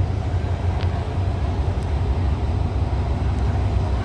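Alsthom diesel-electric locomotive idling, a steady low engine rumble.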